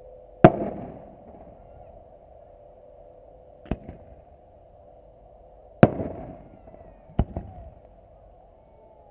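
Aerial firework shells going off in a display: five sharp bangs at uneven intervals, the first the loudest and the last two close together. A steady low hum runs underneath.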